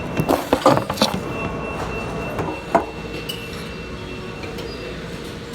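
Dishes and trays clinking and clattering in a cafeteria serving line: a quick run of clinks in the first second, one more sharp clink near three seconds in, over a steady room hum.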